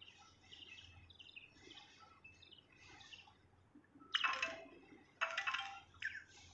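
Small birds chirping and twittering in quick high notes, with two much louder, harsher calls close by, about four and five seconds in.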